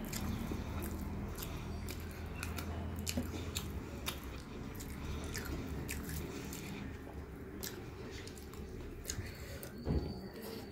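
Fingers mixing and squishing rice with poppy-seed paste on a plate, and chewing, heard as scattered soft wet clicks and smacks over a steady low hum. A louder smack a second before the end as a handful of rice goes into the mouth.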